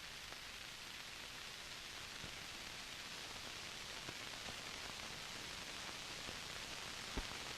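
Steady background hiss of the recording with no narration, broken by a few faint clicks, one of them plainer near the end.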